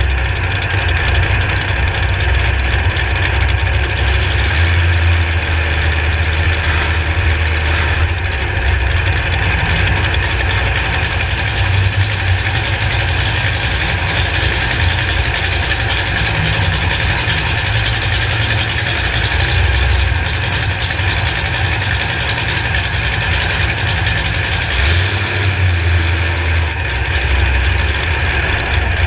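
Demolition derby car's engine running loudly and steadily, its deep rumble swelling and easing now and then.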